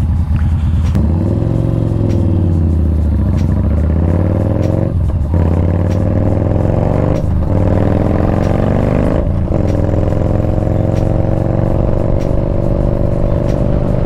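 Yamaha Bolt R-Spec's air-cooled V-twin with its aftermarket exhaust, ridden away from a stop. The engine note climbs through the gears, with three upshifts about 5, 7 and 9 seconds in, then settles into a steady cruise.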